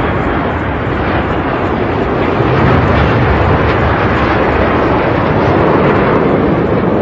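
Jet engine noise of BAE Hawk jets flying over in formation: a steady rushing that grows a little louder about two and a half seconds in.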